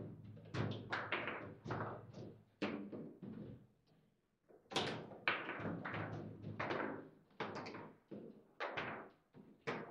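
Table football play: the hard ball and rods knocking against the players' figures and the table walls, in irregular sharp clacks with a brief lull about four seconds in.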